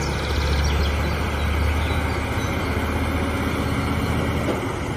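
Heavy truck's diesel engine running under load as it hauls an excavator on a lowboy trailer, a steady low rumble with tyre and road noise.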